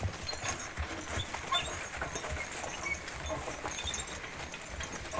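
Draft horses stepping and shifting, with scattered light clicks and knocks.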